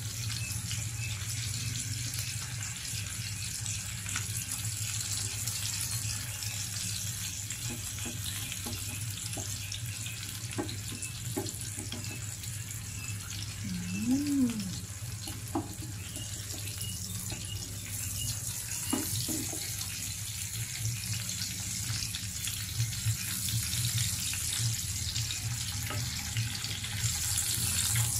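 Sliced ham and pork belly sizzling in an oiled grill pan: a steady hiss that grows louder near the end, with a low hum underneath. A few light clicks of a wooden spatula against the pan come through the middle.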